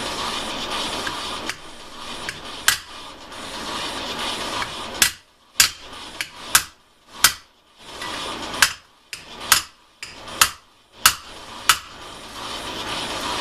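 Hammer tapping on parts of a two-stroke hedge trimmer during disassembly: about a dozen sharp, irregularly spaced knocks, most of them in the second half, over a steady background hiss.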